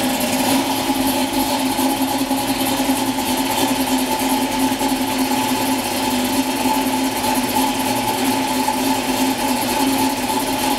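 Built 302 Ford small-block V8 in a 1965 Mustang fastback idling steadily with the hood open, at an even pitch and level.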